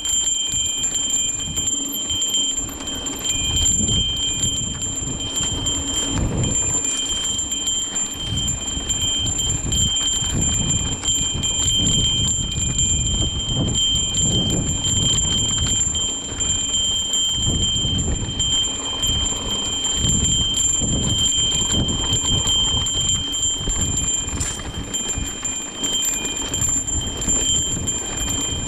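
Trail bell on a mountain bike ringing and jingling steadily as the bike descends, over a shifting low rumble from the rolling bike on the dirt trail.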